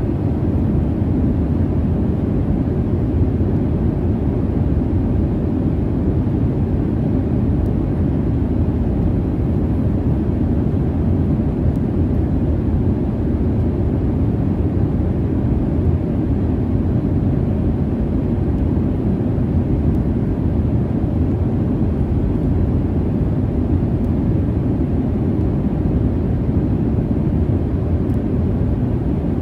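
Jet airliner cabin noise in flight: a steady, unbroken low rumble and hiss with no changes or separate events.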